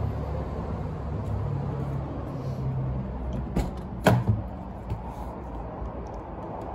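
Door of a Mercedes-Benz 300TE being handled: a light click about three and a half seconds in, a sharp clack of the door latch just after four seconds, and a smaller knock a second later, over a steady low rumble.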